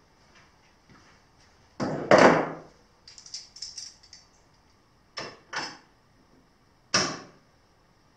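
Knocks and clunks of tools and aluminum plate being handled and set down on a wooden workbench: two loud knocks about two seconds in, a run of light clicks, then two more knocks about five seconds in and a single one near seven seconds.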